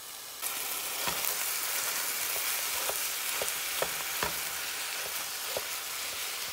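Ground turkey sizzling in a hot, oiled nonstick frying pan, the hiss starting about half a second in as the meat goes down. A few light knocks come from a wooden spatula breaking the meat up.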